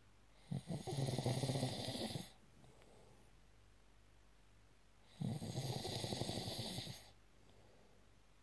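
Snoring: two long snores about five seconds apart, each lasting nearly two seconds with a fast rattling flutter.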